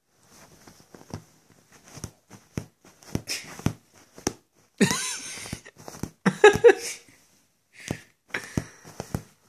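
Breathy sniffs and snuffles right at the microphone from a Somali cat, mixed with sharp taps and rustling of fur and bedding against the phone; the loudest burst comes about halfway through.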